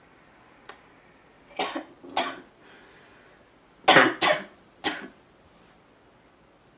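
A sick woman coughing: two coughs, then after a short pause a closer run of three louder ones.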